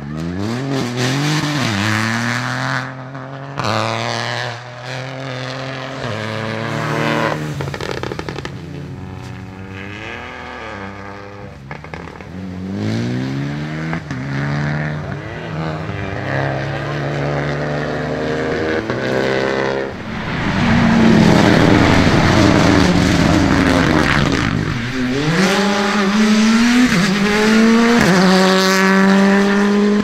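Rally cars at full throttle, engines revving up through the gears with the pitch climbing and dropping at each shift. About two thirds of the way in a car passes close, with a loud rush of tyre noise over the engine.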